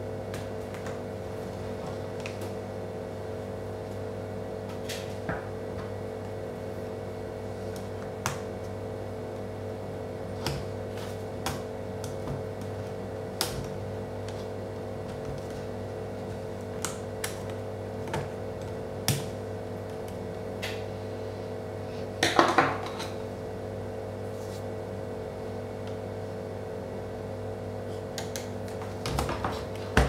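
Scattered light clicks and taps of a screwdriver and plastic parts on a Dell Latitude D430 laptop's case as it is taken apart, with a brief louder clatter about two-thirds of the way through. A steady low hum runs underneath.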